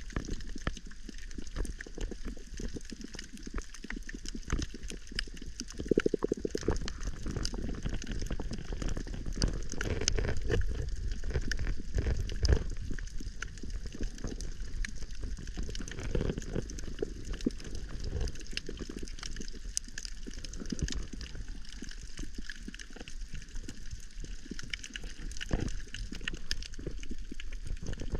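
Underwater ambience picked up by a camera below the surface on a coral reef: a low rushing and sloshing of water with a dense, constant crackle of short clicks. The low water noise grows louder about six seconds in.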